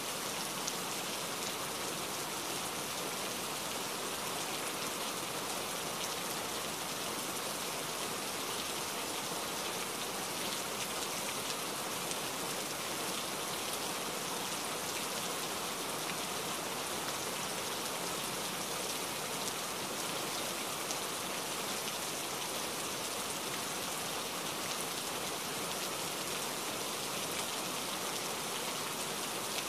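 Heavy rain falling steadily: a dense, even hiss of drops with no let-up.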